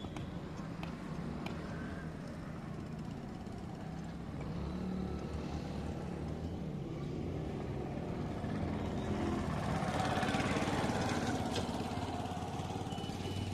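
A motor engine running, growing louder over the middle of the stretch to a peak about ten seconds in, then easing slightly.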